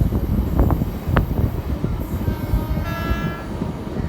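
Train running: a dense low rumble and rattle with a few sharp clicks in the first second or so, and a steady held tone with many overtones starting about two seconds in and lasting about a second.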